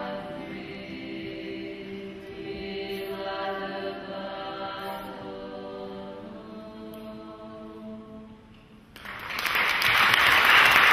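Women's choir singing a Georgian Imeretian folk song a cappella in several-part harmony over a low held drone, ending on a sustained final chord that dies away about eight seconds in. Audience applause breaks out about nine seconds in and is the loudest sound.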